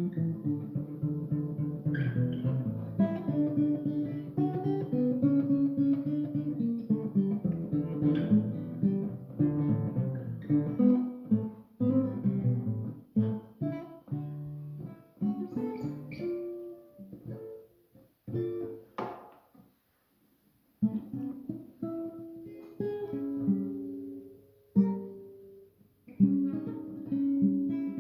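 Guitar being played, a run of plucked notes that thins out and stops for a moment about two-thirds of the way through, then starts again.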